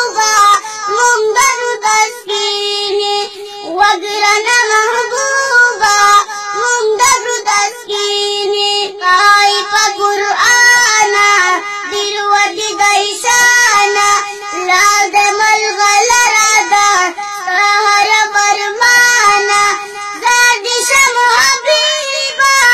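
A young boy singing a Pashto nazm solo in a high voice, holding long notes and moving in steps through the melody.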